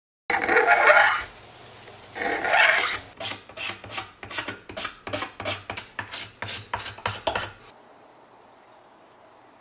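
Steel card scraper shaving the surface of a PLA 3D print: two longer scraping strokes, then a quick run of short strokes, about three a second, which stop near the end.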